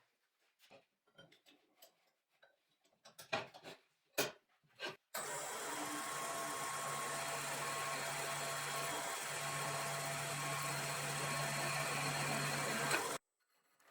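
Restored drill press with a variable-frequency-drive motor running steadily, a hum with a thin high whine over it. It starts abruptly about five seconds in and cuts off abruptly about a second before the end. Before it, scattered light clicks and knocks.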